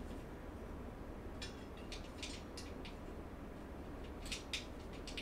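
Faint light clicks and scrapes of bolts and frame parts being handled while a steel-frame dresser is put together: a quick run of small clicks, then two sharper clicks near the end.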